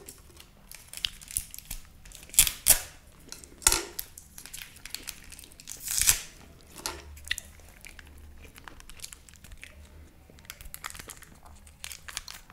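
Small sauce sachets crinkling and being torn open close to the microphone: a run of sharp crackles and tears, loudest a few times between two and four seconds in and again about six seconds in.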